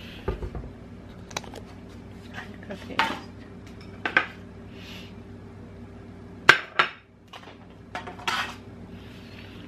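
Dishes and cutlery clinking and knocking as a kitchen is tidied up: a scattering of separate sharp knocks, the loudest about six and a half seconds in, over a faint steady hum.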